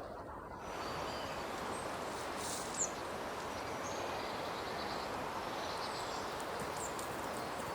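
Steady outdoor rushing noise with a few faint, short, high bird-like chirps, one of them sharper about three seconds in.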